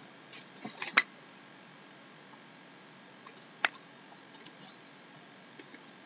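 A few light clicks and taps of the kind made while working a computer stylus or mouse. A small cluster comes near the start, ending in a sharp click about a second in, then one more sharp click after about three and a half seconds and a few faint ticks over quiet room hiss.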